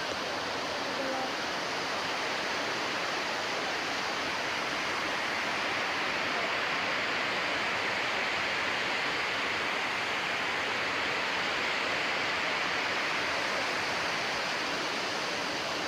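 Artificial waterfall pouring over rocks into a koi pond: a steady rushing of falling water.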